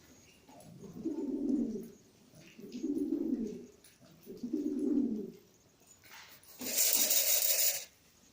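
Makabi pigeon cooing: three low, rolling coos of about a second each. Near the end comes a burst of noise of just over a second.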